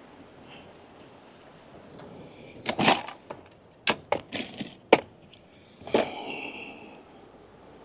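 Fishing gear being handled: a run of sharp knocks and clatters from about three to six seconds in, the last one followed by a short ringing tone.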